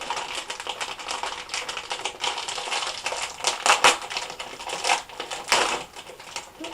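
Plastic snack wrappers crinkling and crackling as packs of small cakes are handled, with a few louder crackles in the middle and about five seconds in.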